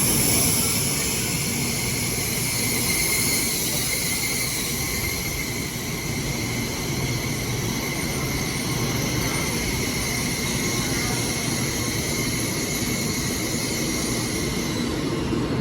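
N700S Shinkansen train running past the platform: a steady rush of noise with a high-pitched whine.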